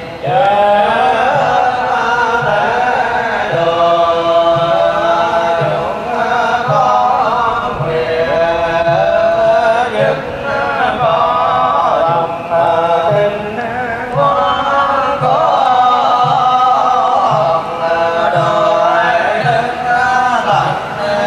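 Melodic Buddhist chanting sung by voices, held and gliding notes, over a steady low beat a little more than once a second.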